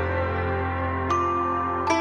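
Background music: soft ambient synthesizer chords over a steady low note, the chord changing about a second in.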